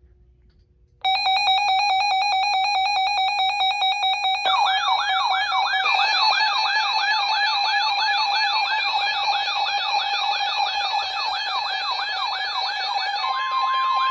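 A chorus of weather-alert radios going off at once. Rapid beeping alarms start about a second in, and warbling siren-style alarms join about four seconds in. Near the end, the NOAA Weather Radio broadcast's steady 1050 Hz warning alarm tone comes in over them.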